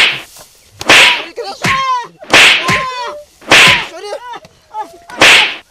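A stick striking a person in a staged beating, five loud whip-like cracks spaced a second or so apart. A voice cries out between the blows.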